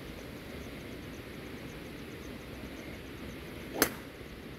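A golf club striking a teed-up ball on a tee shot: one sharp crack near the end, against faint steady background noise.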